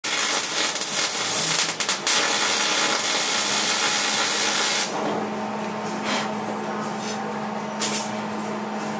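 Electric welding arc crackling and hissing steadily for about five seconds while a plug weld is laid in a VW bus body panel. The arc then stops, leaving a steady hum with a few short hissing blips.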